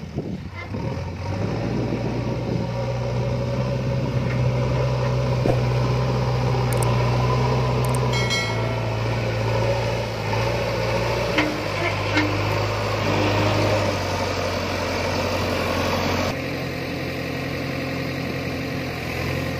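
JCB 3DX backhoe loader's diesel engine running close by as the machine drives and works, its revs stepping up and down several times and settling to a lower, steadier idle about sixteen seconds in.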